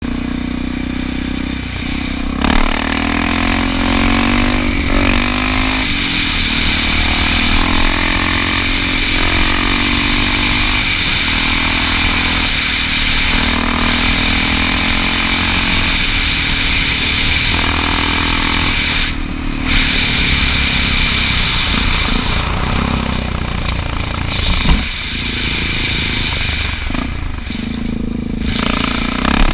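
Honda XR650L's single-cylinder four-stroke engine being ridden hard off road, revving up and down over and over as the throttle is worked.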